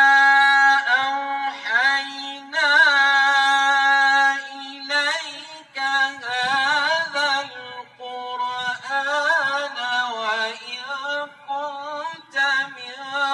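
A man's voice reciting the Quran in melodic tajweed chant. He holds long notes and ornaments them, with short breaths between phrases.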